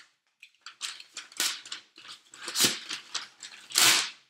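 Utility knife slicing through the brown paper wrapping and packing tape of a cardboard box: a run of rasping cuts, three of them louder than the rest.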